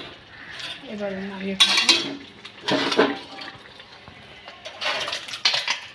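Steel kadai scraping and clanking against a steel bowl as thick curry is poured out, in several short scrapes with liquid sloshing.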